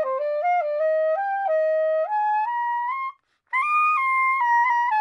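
Soprano saxophone playing a quick phrase of short notes that climb in steps. It stops for a breath about three seconds in, then comes back on a higher note that steps down again.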